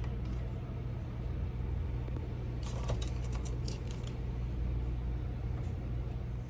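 Frigidaire top-freezer refrigerator running just after being powered up on freshly spliced wiring: a steady low electrical hum, with a quick run of small clicks and rattles about three seconds in.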